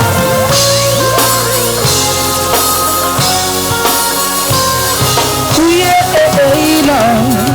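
A live band playing a reggae song, with a drum kit and a heavy bass line.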